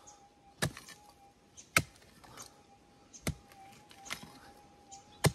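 A digging pick striking hard ground four times, digging out a metal detector target, with the last strike the loudest. Under it, a metal detector's steady threshold hum with a slight waver.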